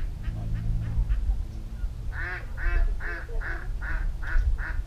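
A duck quacking: a run of about seven short quacks at an even pace of roughly two and a half a second, starting about two seconds in.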